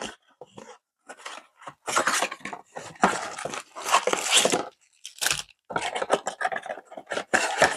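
Cardboard and plastic card packaging being torn open and handled: a run of irregular rustles, scrapes and tearing sounds with short pauses between them.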